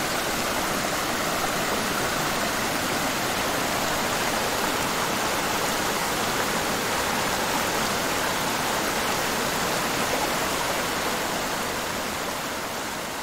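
Waterfall rushing: a steady roar of falling water that eases off slightly near the end.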